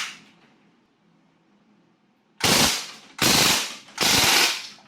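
KWC Mini Uzi CO2 airsoft submachine gun firing on full automatic: three short, loud bursts in quick succession in the second half.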